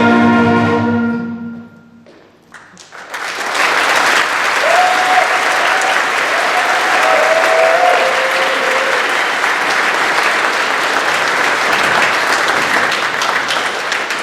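The last held note of the sung national anthem dies away about a second in. After a short pause, a large crowd breaks into sustained applause with some cheering.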